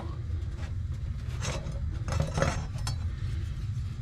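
Low steady grumble of a water heater running, with a few light clinks, knocks and rubbing from things being handled on the bench between about one and a half and three seconds in.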